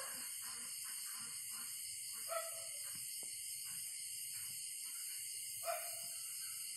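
Night ambience of a steady, high insect chorus, with a short animal call twice, about three seconds apart.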